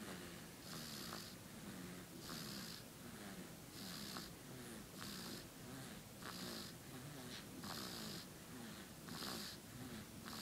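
A baby snoring faintly in sleep, one raspy breath a little more than every second in an even rhythm.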